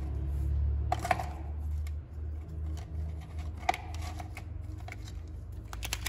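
Scattered light clicks and rattles of plastic side-mirror parts and tools being handled on a rubber workbench mat, with a quick run of clicks near the end, over a steady low hum.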